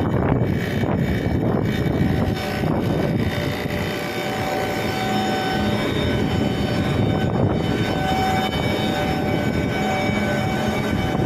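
Steady mechanical drone of running machinery, with faint steady tones over it.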